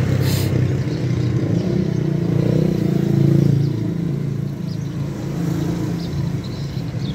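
Motorbike engine running close by, its low drone swelling about three seconds in and then easing off, with a single sharp click just after the start.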